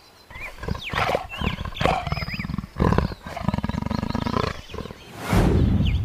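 A big cat growling in a series of rough, rattling calls, with the loudest and longest snarl about five seconds in. Small birds chirp faintly behind it.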